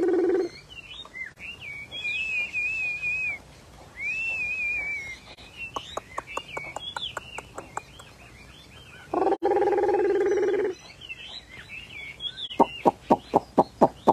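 Chinese hwamei songbirds singing: warbling whistled phrases, then trains of quick clipped notes, and near the end a loud run of sharp repeated notes about six a second. A held, lower-pitched call lasting about a second and a half comes about nine seconds in.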